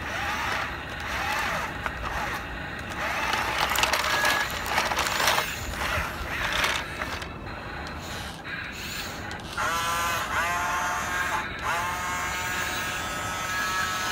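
Small electric motors and plastic gears of radio-controlled toy construction vehicles (a Huina dump truck and excavator) whirring, with the truck's wheels rolling over grit on concrete. From about ten seconds in, a motor whine rises in pitch and cuts off several times in quick succession.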